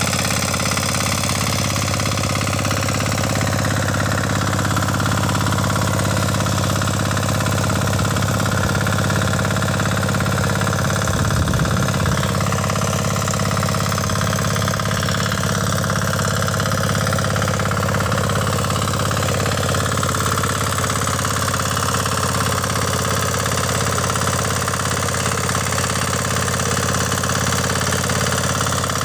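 Kama 9 hp single-cylinder diesel engine of a walk-behind power weeder running steadily as it drives the rotary tines through wet paddy soil, briefly a little louder about eleven seconds in.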